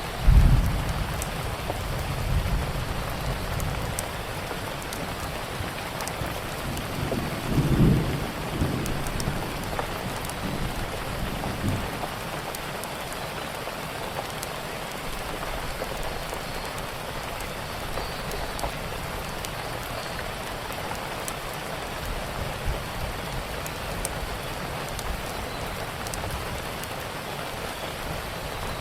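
Steady heavy rain with scattered fine crackles, and low thunder rumbling just as it begins and again about eight seconds in, fading after a few seconds each time.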